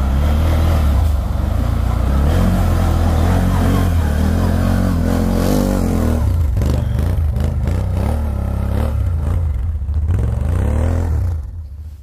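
Can-Am Outlander XMR 1000R ATV's V-twin engine revving hard as it churns through deep snow with its wheels spinning and throwing snow. The engine pitch rises and falls again and again in the second half, and the sound drops away just before the end.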